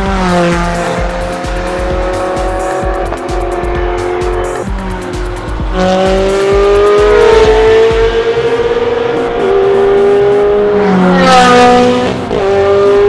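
Ferrari sports car engines revving hard as the cars accelerate past, the pitch climbing steadily then dropping back at each upshift, several times over. The loudest stretch comes as a car passes close near the end.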